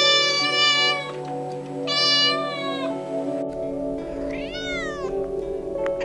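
Kittens meowing over background music: two long, level meows, then a shorter meow that falls in pitch from a second cat.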